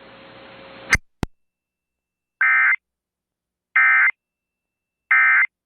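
Emergency Alert System end-of-message data tones: three short identical bursts of screeching digital code, about a second and a half apart. They follow a second of broadcast hiss that cuts off with two clicks.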